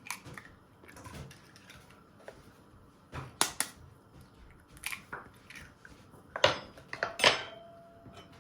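Eggs being cracked against the edge of a bowl and dropped into the flour: a handful of sharp taps and cracks, spread unevenly over several seconds.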